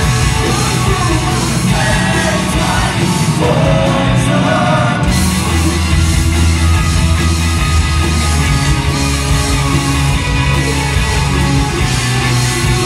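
Live rock band playing loud, with electric guitars, drums and a male singer's voice over the first few seconds. About five seconds in the band comes in fuller and heavier in the low end.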